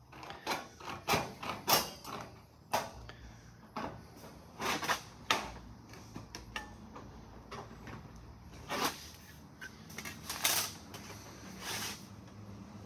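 Red-handled aviation snips cutting 26-gauge galvanized sheet steel: a series of short, crisp cuts as the blades close and push forward. The cuts come several in quick succession at first and are more spaced out later.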